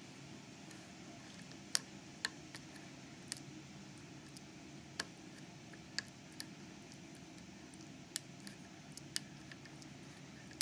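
Hook pick clicking against the pin tumblers of a Master Lock ProSeries 7040 padlock as it is being picked: small, sharp clicks at irregular intervals over a faint steady hum.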